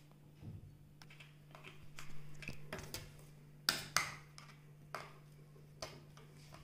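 Metal spoon stirring a thick chocolate-biscuit batter in a stainless-steel mixer jar: irregular soft scrapes and clinks against the jar, with two sharper clinks about four seconds in.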